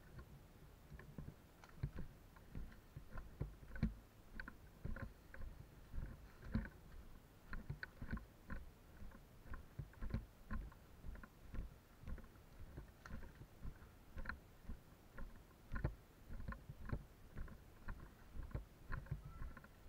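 Running footsteps on dry forest leaf litter, a thud about every half second with light crunching clicks.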